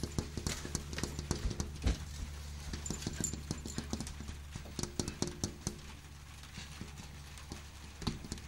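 Irregular light taps and knocks on a glass window pane, from fingers tapping the outside of the glass and cats pawing at it from inside; the taps come in quick clusters, thickest in the first couple of seconds and again about halfway, over a steady low hum.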